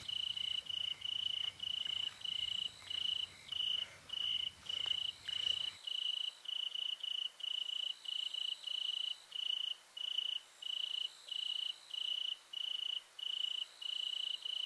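Cricket chirping in a steady, even rhythm, about three high-pitched chirps a second.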